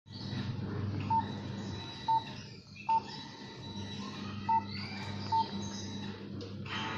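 Nokia Asha 200 keypad tones: five short beeps of one pitch at uneven intervals as keys are pressed, over a steady low hum.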